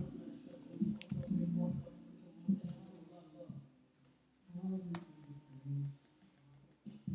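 Scattered computer keyboard keystrokes as a word is typed into a code editor, a few sharp clicks a second or so apart, with faint low murmuring in between.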